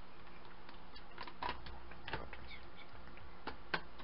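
Faint, scattered light taps and clicks of fingertips touching the metal-and-plastic cases of 2.5-inch laptop hard drives one after another as they are counted, over a low steady hum.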